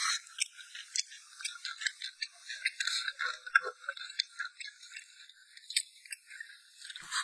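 Chewing and mouth sounds from eating: dense, irregular small clicks and crackles, thin and tinny with no low end.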